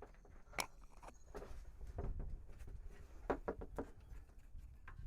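Scattered light knocks and clicks from handling parts during installation work, over a low steady rumble.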